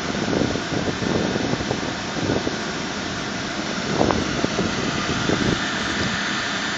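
Long Island Rail Road M7 electric multiple-unit train beside the platform, giving a steady whir and hum of its motors and blowers, with a light knock about four seconds in.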